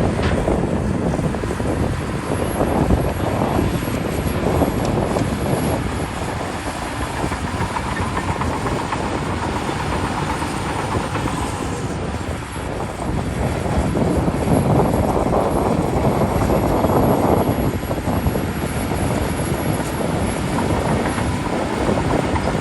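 Shantui DH17C2 bulldozer's diesel engine working hard as it pushes soil, dropping briefly about halfway through and then rising again.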